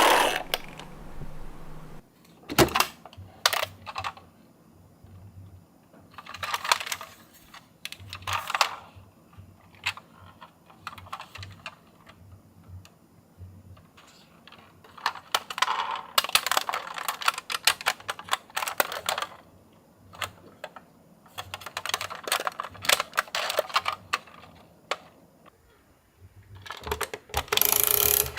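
Miniature toy cars clicking and rattling in irregular bursts of small hard knocks, with a louder clatter near the end.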